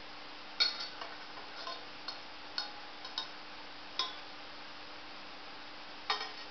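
Light clinks and taps of a ceramic plate being handled and set on a towel-covered counter: about a dozen short, ringing clicks in loose clusters, over a faint steady hum.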